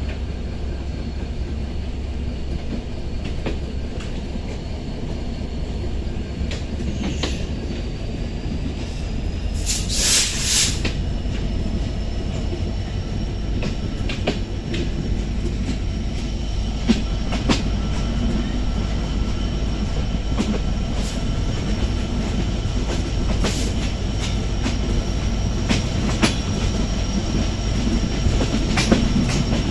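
Benapole Express passenger train running on the track, heard from on board: a steady rumble with the wheels clicking over rail joints now and then and a faint high wheel squeal. There is a brief loud hiss about ten seconds in.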